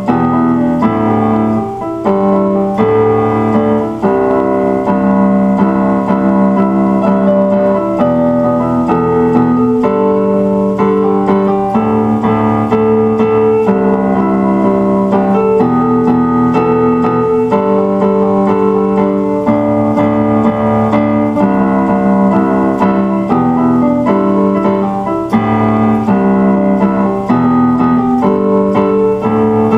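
Keyboard music in an electric-piano voice: a slow piece of chords that change about every two seconds.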